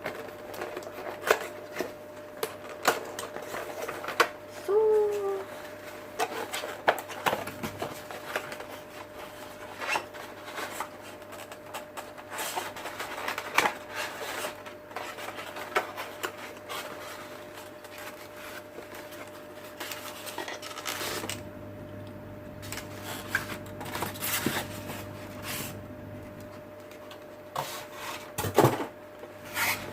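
Packaging being opened and handled: rubbing and scraping with frequent light clicks and knocks, over a steady faint hum.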